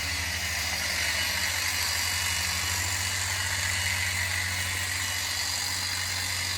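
Ego cordless battery hedge trimmer on a telescopic pole, running steadily with its blades reciprocating, a continuous buzzing whir with a low hum underneath.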